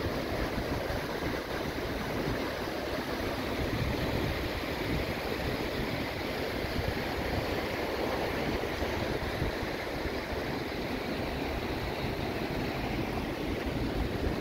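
Steady wash of sea surf breaking on the shore, mixed with wind rumbling on the microphone.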